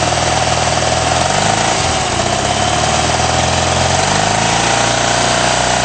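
A vehicle engine idling steadily, its note shifting slightly a couple of times.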